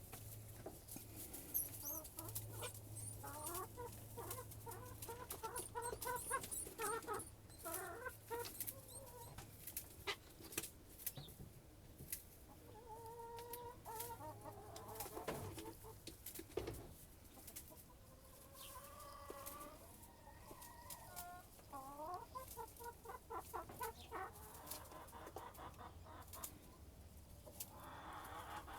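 Chickens clucking and calling many times over, some calls gliding in pitch, with scattered sharp taps and a faint steady low hum underneath.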